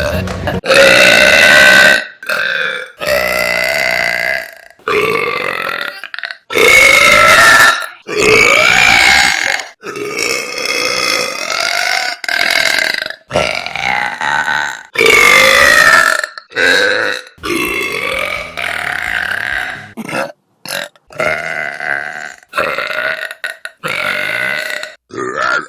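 A woman's loud, deep belches, about fifteen in quick succession, each lasting half a second to two seconds with its pitch shifting through it, cut one straight after another.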